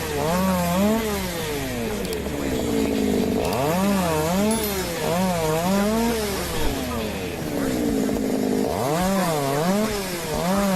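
A power tool's motor running under changing load, its pitch dipping and rising in a steady rhythm about one and a half times a second, with two short stretches where it holds a steadier pitch.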